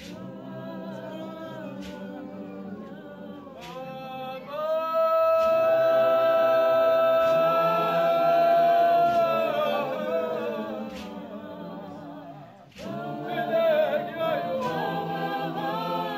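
A group of women singing a cappella in several parts, holding one long note for about five seconds midway. The singing drops away briefly after twelve seconds, then starts again.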